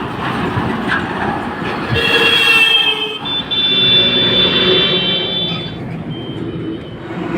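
JCB earth-moving machine working, its engine running under a loud high-pitched metallic squeal that sets in about two seconds in and fades near the end.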